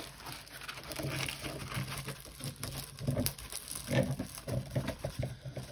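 Rustling and rubbing of a diamond painting canvas and its plastic cover film as it is rolled up by hand, with louder rustles about three and four seconds in.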